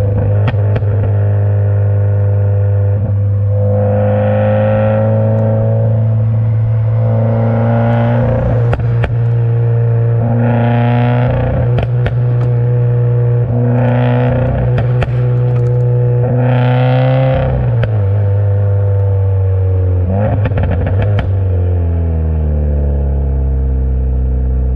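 Stage 2 2015 Subaru WRX's turbocharged flat-four running, blipped about five times a few seconds apart, with sharp exhaust pops and crackles as the revs drop after each blip. Near the end the revs sink slowly back down.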